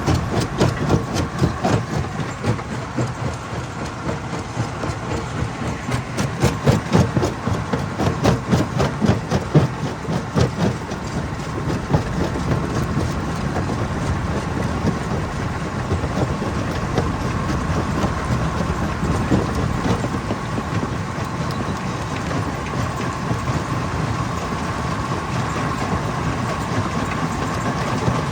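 Hammer crusher running with a steady high hum and a dense, rapid clatter of rock being broken. The knocking is heaviest over roughly the first dozen seconds, then settles into steadier running.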